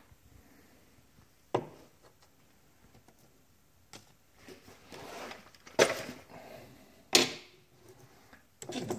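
A few sharp knocks and clatters of tools and valve parts being handled and set down on a workbench, with softer handling noise between them; the two loudest knocks come in the second half.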